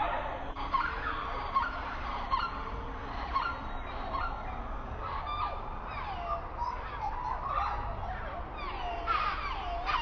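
A flock of birds calling in the trees, many short, curving chirps and whistles overlapping without a break, over a low steady rumble.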